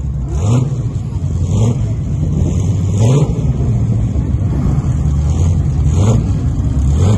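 Sports-car engines running loud and low as the cars roll slowly past, with a few short revs: one about half a second in, one around the middle and another near the end.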